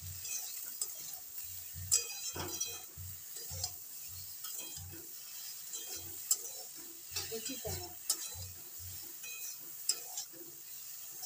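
Metal spatula stirring and tossing cut okra in a hot metal kadhai: repeated scrapes and knocks against the pan, roughly one or two a second, over a light sizzle of frying.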